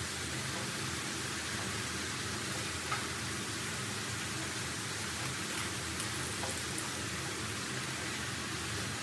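Potato fries deep-frying in hot oil in a metal wok, a steady sizzle, with a couple of light clicks from the metal utensils touching the pan.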